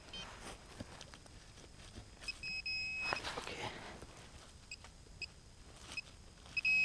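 Metal-detecting gear giving short high-pitched electronic beeps as the open hole is probed for the target: one at the start, a longer one a few seconds in, a few quick blips and another longer beep near the end. Faint soil scraping and clicks from digging by hand come between the beeps.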